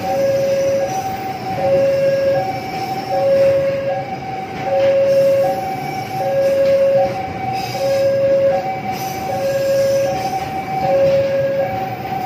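Freight train of container-laden flatcars rolling past with steady wheel-and-rail rumble, while a railway level-crossing warning alarm sounds two alternating tones, low then high, about once every second and a half.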